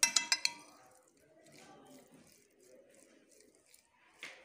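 Metal spoon clinking against a glass bowl about five times in quick succession, then quiet stirring of raw chicken pieces coated in dry spices, with one more clink near the end.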